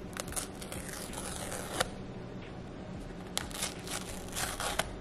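Paper pull-tab seal strip being ripped off an iPhone 15 box: two tearing rips of about a second and a half each, one right away and another about three seconds in.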